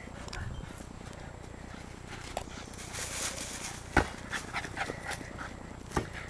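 Dog noises as a dog chases and tackles a large rubber ball, with two sharp thumps about two seconds apart: the first as the ball is punched into the air about four seconds in, the second near the end as the ball is hit again.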